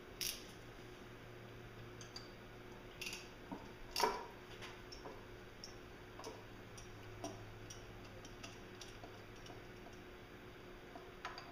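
Hand wrench clicking and clinking on the rear-cover bolts of a MerCruiser Bravo sterndrive upper unit as they are worked loose: scattered irregular ticks, the loudest clink about four seconds in, over a low steady hum.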